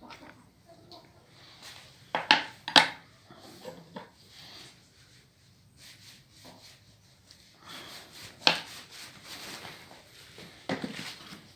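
Objects being handled: a few sharp knocks and clacks, two close together about two seconds in, a loud one past eight seconds and another near the end, with faint rubbing and scraping between.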